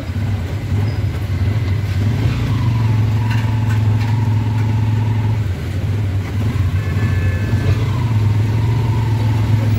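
Auto-rickshaw engine running steadily under way, heard from inside the passenger cab; the engine eases off briefly just past halfway, then picks up again.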